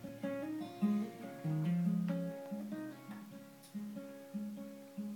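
Acoustic guitar played solo, with notes and chords picked in a steady rhythm, each ringing and dying away before the next.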